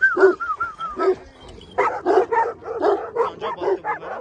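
Large shepherd dogs, agitated after going at each other: a high, wavering whine for about a second, then a quick run of barks, about four a second.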